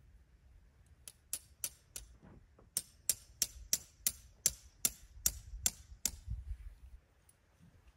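A tent stake being knocked into the ground: a run of about fifteen sharp taps, roughly three a second, starting about a second in and stopping about six seconds in.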